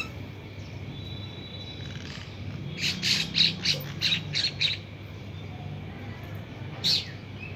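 A bird calling: a quick run of about seven short, harsh calls, then a single call near the end, over a steady low hum.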